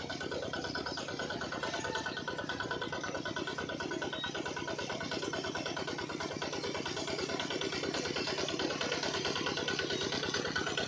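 Small engine of a miniature water pump running steadily with a rapid, even putter.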